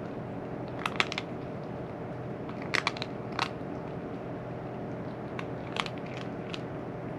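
A cat chewing dry food: irregular clusters of sharp, crisp crunches over a steady background hum.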